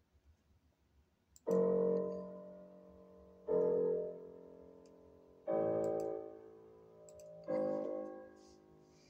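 A software piano in FL Studio playing back a piano-roll pattern: four piano notes, one every two seconds starting about a second and a half in, each struck sharply and then dying away.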